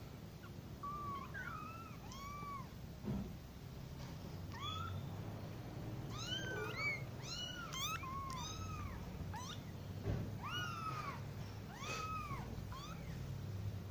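Young kittens mewing again and again: many short, high-pitched calls that rise and then fall, several kittens at once, overlapping most in the middle.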